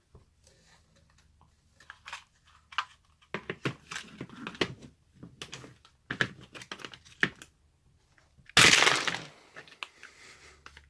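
Plastic bit case clicking and knocking as a tight removable bit-storage insert is pried at. About 8.5 s in, a sudden loud rattle of under a second as the insert pops free and screwdriver bits spill out.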